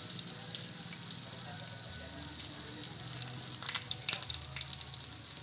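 Food frying in hot oil in a pan: steady sizzling with scattered crackles, and a few sharp clicks about four seconds in.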